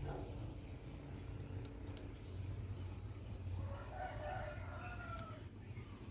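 A rooster crowing once, a single call of nearly two seconds starting about three and a half seconds in, over a steady low hum.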